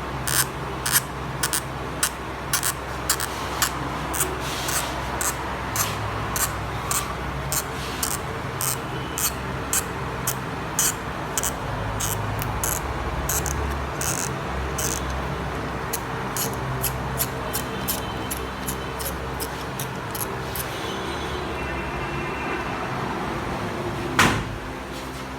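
Battery adhesive strip of an iPhone XS Max crackling in a long run of sharp clicks, two to three a second, as it is stretched and pulled out slowly, over a steady background hum. The clicks stop about 21 seconds in, and one louder click comes near the end.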